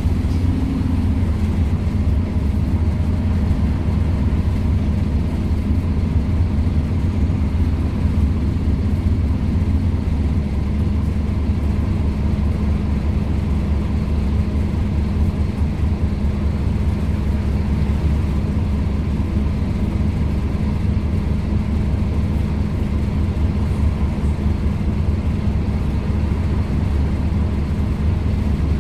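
Scania N230UD OmniCity bus's Scania DC9 five-cylinder diesel idling steadily while the bus stands still, heard from inside the passenger saloon.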